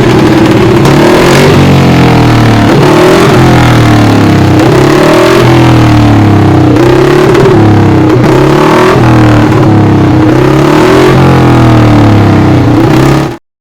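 1956 Moto Guzzi 350 Bialbero's single-cylinder twin-cam four-stroke racing engine running loud and revving, its pitch climbing and dropping again and again about once a second. The sound cuts off suddenly near the end.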